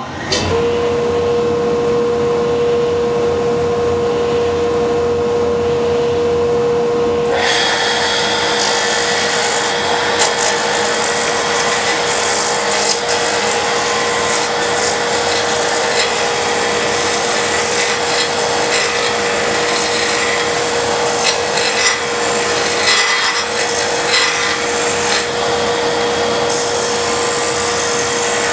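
Wood lathe switched on, its motor running with a steady whine. About seven seconds in, a turning gouge starts cutting the spinning square wooden blank: a loud continuous rough scraping with scattered knocks, as the blank is roughed down to a round cylinder.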